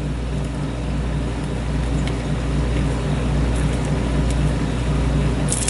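Steady low machine hum, with a few faint light clicks, the brightest cluster near the end.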